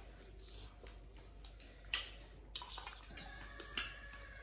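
Faint clinks of stainless-steel plates, bowls and cups being handled during a meal, with two sharper clinks: one about two seconds in and one near the end.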